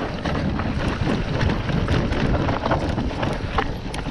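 Mountain bike riding down a stony dirt trail: tyres crunching over loose rock, with many quick irregular clicks and rattles from the bike and wind buffeting the microphone.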